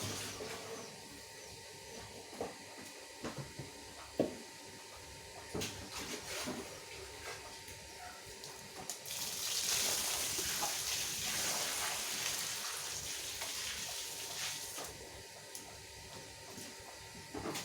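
Water splashing and sloshing on a carpet being wet-washed, with scattered knocks. A louder hiss of water from about nine to fifteen seconds in.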